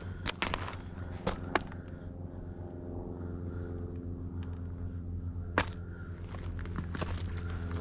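Footsteps crunching on loose railroad ballast rock: a run of sharp steps, a pause of a few seconds, then steps again near the end, over a steady low hum.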